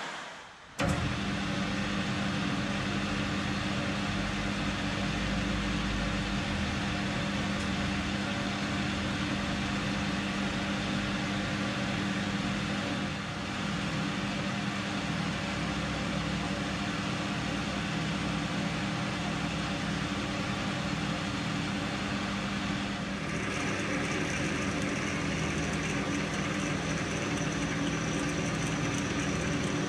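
Metal lathe running under power with a steady motor and gearbox hum while a large twist drill in the tailstock is fed into a cast-iron casting held in a four-jaw chuck. About two-thirds of the way through, a higher hissing cutting noise joins the hum as the drill bites into the metal.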